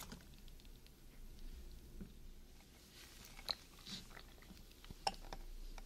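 Metal spoon scraping and scooping coconut-milk frozen dessert in a paper pint container. Small scattered clicks, two of them sharp, about three and a half and five seconds in.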